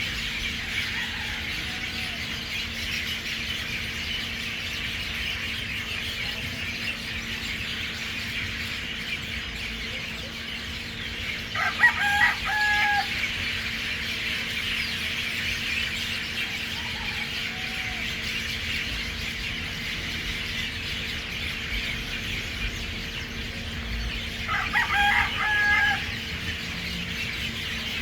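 Dense, unbroken chatter of a large flock of birds roosting in a tree. A rooster crows twice over it, about twelve seconds in and again about twenty-four seconds in. A faint steady hum runs underneath.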